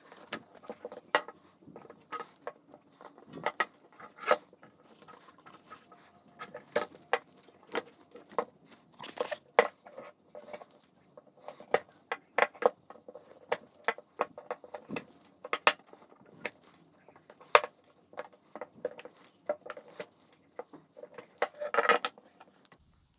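Pliers pulling old metal staples out of a wooden canvas stretcher frame: a string of irregular sharp clicks, small metallic ticks and short scrapes as staples are gripped and pried out of the wood.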